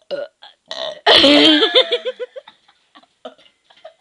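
A girl's loud, deliberate burp about a second in, lasting about a second and breaking into quick pulses as it trails off.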